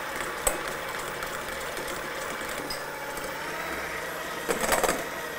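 KitchenAid electric hand mixer running at a raised speed, its twin beaters whipping egg whites and sugar in a stainless steel bowl as they stiffen toward medium peaks. A short rattle of clicks near the end.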